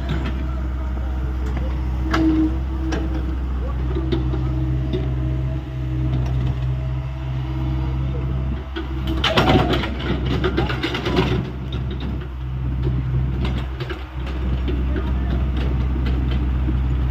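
Hyundai 85A excavator's diesel engine running steadily, with scattered knocks and a louder, noisy clatter about nine seconds in that lasts around two seconds.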